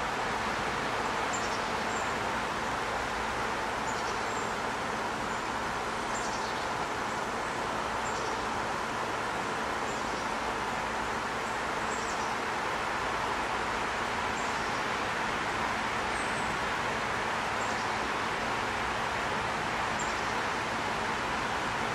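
Steady hiss of distant road traffic, with faint, short, high bird chirps every second or two.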